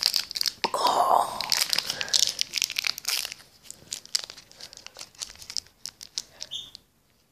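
Plastic wrapper of a Twix candy bar crinkling and tearing as it is opened: dense crackling for about the first three seconds, then sparser crinkles.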